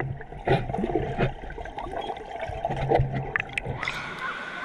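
Muffled gurgling water heard with the microphone underwater in a pool, with a few sharp clicks. Near the end it comes up out of the water and the full, hissing sound of splashing pool water returns.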